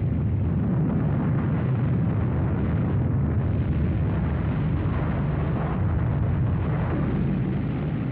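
Deep, steady rumble of an atomic bomb explosion, a sound effect laid over film of the rising mushroom cloud; the rumble is heaviest in the low end and holds an even level.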